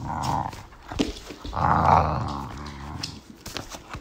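A dog growling in play during a game of tug, in about three rough bouts, the longest and loudest in the middle, with a few sharp clicks between them.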